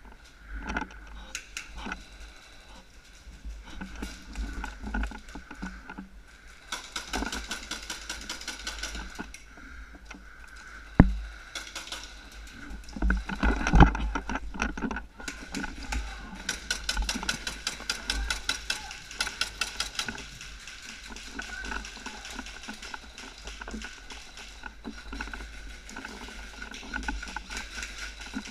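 Airsoft gunfire in an indoor arena: long runs of rapid, evenly spaced clicking, typical of airsoft guns firing full-auto, in two stretches. There is a sharp knock about eleven seconds in, and more knocks and rattles a few seconds later.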